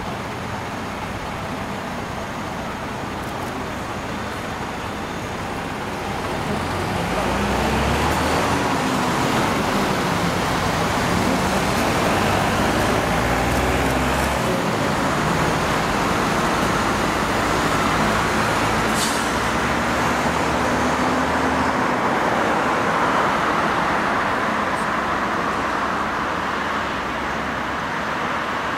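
The twin CFM56 turbofan jet engines of a Boeing P-8A Poseidon running at taxi power as the aircraft rolls past. The engine noise swells about six seconds in, holds steady and eases slightly near the end, with road traffic noise mixed in.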